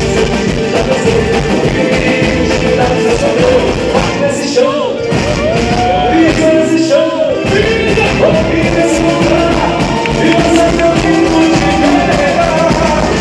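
Loud amplified music: a sung melody over a steady band beat.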